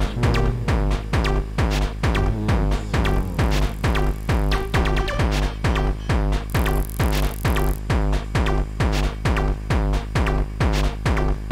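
Techno music from a live DJ set: a steady kick-drum beat at about two beats a second, with a brief wash of hiss layered in about seven seconds in.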